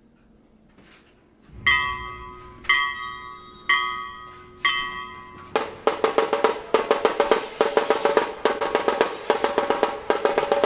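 Background music: after a brief near-silence, four pitched chords are struck about once a second, then a fast drum beat kicks in about five and a half seconds in and keeps going.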